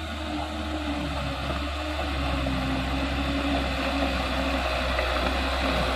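Diesel engine of a loaded Mitsubishi Fuso Canter 136 PS light truck pulling steadily under load on a muddy climb. It grows louder as the truck approaches.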